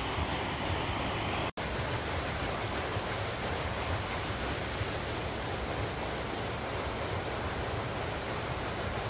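Steady rush of spring water pouring down past an old mill's water wheel. It breaks off for a split second about a second and a half in.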